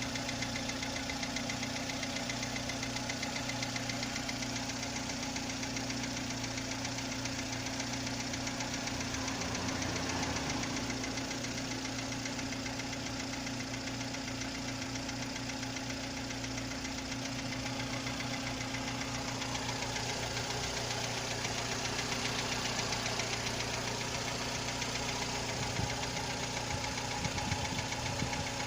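VW Polo 6N1 engine running steadily with a fast, even rattling tick. The owner suspects hydraulic lifters, the distributor or a shaft as the cause.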